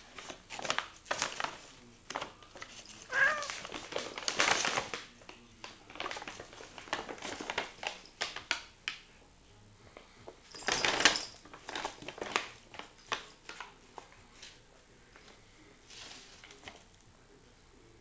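Brown paper grocery bag crinkling and rustling in irregular bursts as a cat paws and scrambles at it; the longest, loudest rustle comes about eleven seconds in.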